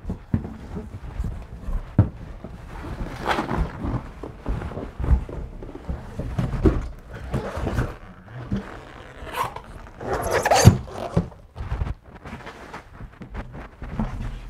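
Product boxes being handled and pulled out of a large cardboard shipping carton: irregular cardboard scraping and rubbing with bubble-wrap rustling, and several dull knocks as the boxes bump the carton. The loudest stretch of scraping and a sharp knock come about ten seconds in.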